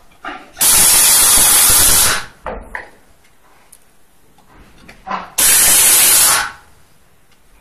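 Pneumatic screwdriver running in two bursts with a loud air hiss, about a second and a half and then about a second, as it drives screws into a chair armrest.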